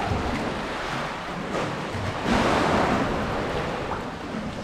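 Sea kayak paddle strokes splashing through calm sea water, over the steady wash of water lapping in a sea cave, with a louder surge of water a little over two seconds in.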